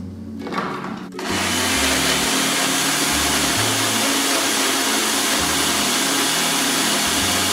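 Ninja Professional personal blender switched on about a second in and running steadily, puréeing onion, fresh spearmint and olive oil into a green liquid.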